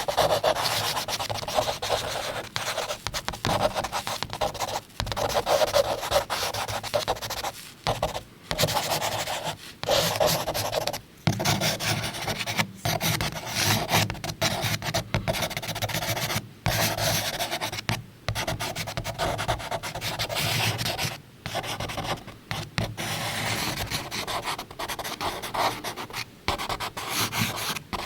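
Charcoal drawn across paper: continuous scratchy, rasping strokes of a second or two each, broken by short pauses as the charcoal is lifted.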